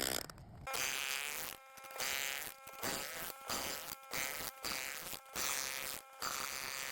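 Jackhammer breaking up old concrete, a buzzing rattle that runs in short bursts of about half a second to a second with brief stops between them.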